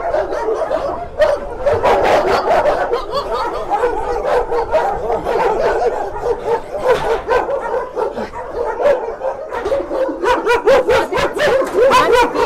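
Many kennelled shelter dogs barking at once, a dense, overlapping chorus of barks and yips that does not let up.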